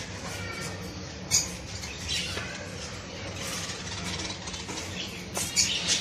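Many caged birds chirping and squawking, with short sharp calls about a second in and a cluster near the end, over a steady low hum.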